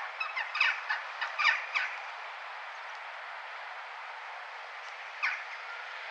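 Crow cawing: a quick run of short calls over the first two seconds, then one more call about five seconds in, over a steady hum of town background noise.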